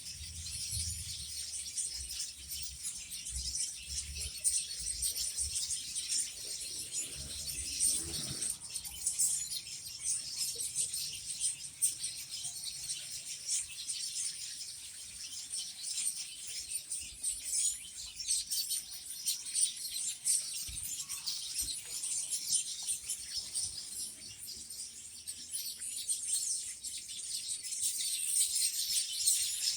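Many small birds chirping and twittering at once, a dense, continuous chorus of short high calls.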